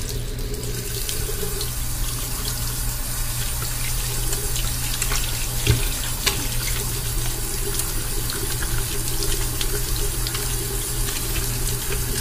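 Bathroom sink faucet running steadily into the basin while hands are washed and lathered under the stream, with one brief knock about halfway through.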